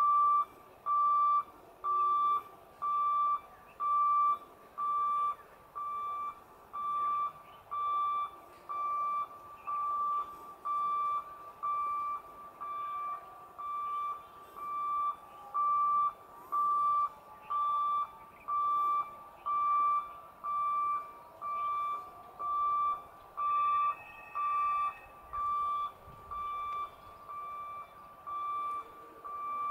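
Level crossing warning beeper at a railway gate, sounding a steady high beep about once a second. It signals that the gate is closed for an approaching train.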